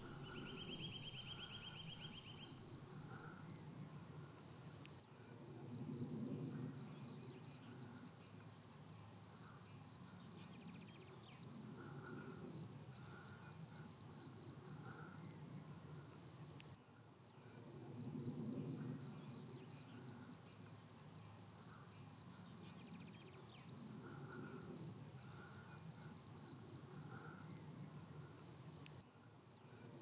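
Cricket stridulating in a continuous high-pitched pulsing trill. Underneath it, groups of soft low pulses come and go every few seconds, and a second, finer trill is heard briefly at the start.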